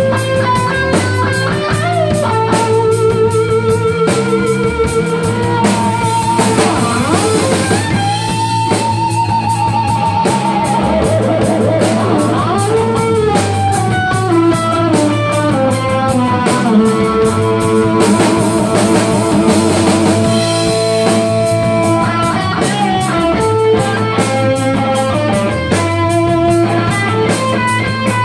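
Live rock band playing: an electric guitar solo of held notes with vibrato and bends, over drums and bass.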